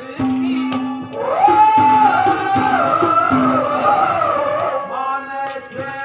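Male folk singer in a Haryanvi ragni competition holding one long, loud, high note that rises and then wavers, over a steady instrumental note and drum strokes.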